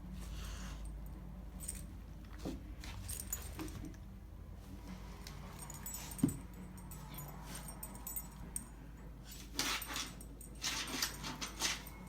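A dog's collar tags jingling as the dog moves about, in short bursts with scattered clicks, loudest near the end.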